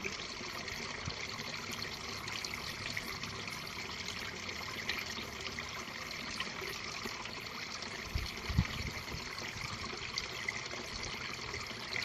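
Steady background hiss with no motor running, and a few soft low handling thumps about eight to nine seconds in.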